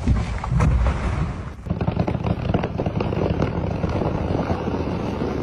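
A felled tree coming down: a sudden loud crash with a heavy low rumble, then several seconds of dense crackling and snapping as its branches and leaves break.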